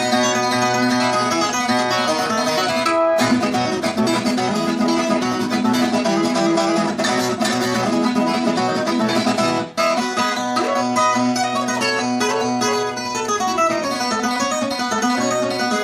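Background music led by plucked guitar-like strings, with a steady strummed accompaniment.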